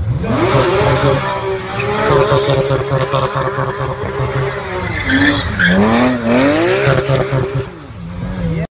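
Porsche 911 flat-six revving hard while the car spins in a burnout donut, its rear tyres squealing and skidding. The revs climb sharply at the start and hold high, dip and rise again about two-thirds of the way through, and drop near the end before the sound cuts off abruptly.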